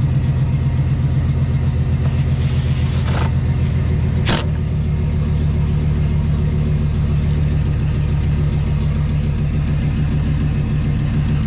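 Chevy Silverado pickup engine idling steadily just after being started. There is a short burst of noise about three seconds in and a sharp click a second later.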